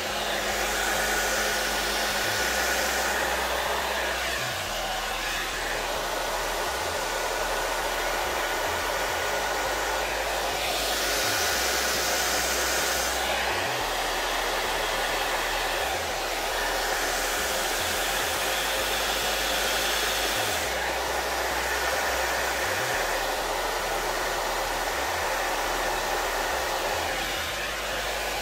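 Handheld hair dryer running on its low setting, blowing wet acrylic pour paint across a canvas to open up cells. A steady airflow hiss with a thin steady motor whine; the hiss grows brighter for a couple of seconds at a time, a few times.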